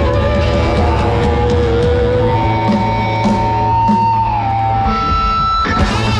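Loud amplified live band music: rock with guitar over a heavy, steady bass.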